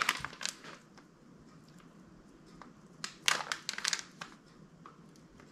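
Clear plastic parts bags crinkling as they are handled, with a little rustling in the first second and two short, louder crinkles about three and a half seconds in.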